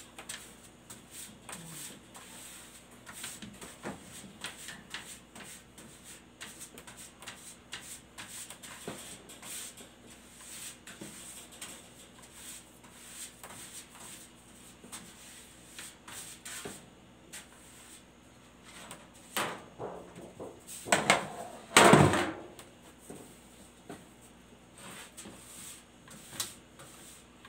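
Pastry brush strokes and light taps on a metal baking sheet as it is greased, a run of small scratchy clicks. About three quarters of the way through comes a much louder metallic scrape and clatter, lasting a second or so.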